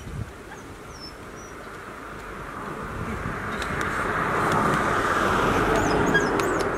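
A small kei van passing on the road, its tyre and engine noise swelling over a few seconds and easing off near the end.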